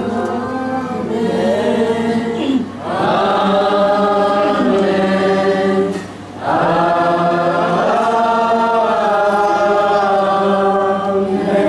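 A congregation singing a hymn together in long held notes, with two short breaks between phrases, about three and six seconds in.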